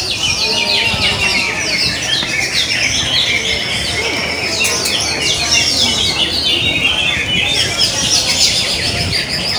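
Many caged greater green leafbirds singing at once in a songbird contest, a dense, unbroken chorus of fast, high chirps and whistled phrases overlapping one another.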